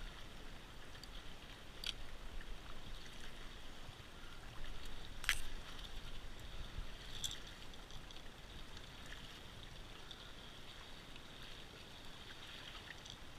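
Water lapping gently against a kayak's hull, with a few light clicks and taps, the sharpest about five seconds in.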